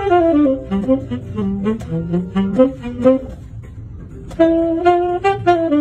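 Saxophone playing a slow melody in two mostly descending phrases, with a short pause about three and a half seconds in before the second phrase starts.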